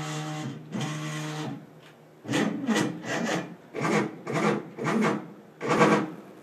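ShopBot CNC router's stepper motors whining as the gantry and cutter are jogged with the arrow keys. There are two steady-pitch moves in the first second and a half, then, after a short pause, about six short moves whose pitch rises and falls as the motors speed up and slow down.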